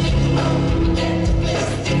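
Loud music with singing over a band.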